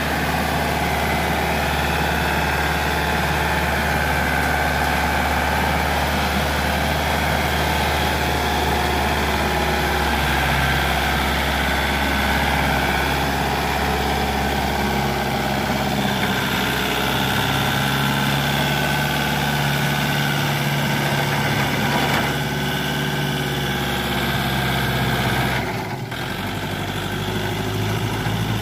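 Kubota L1-285 tractor's diesel engine running steadily, its pitch shifting a little partway through, with an abrupt change in the sound and a brief drop in level near the end.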